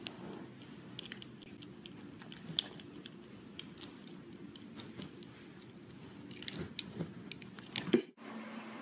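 A dog moving about, its metal collar chain and tag clinking in irregular small clicks. A loud knock comes near the end.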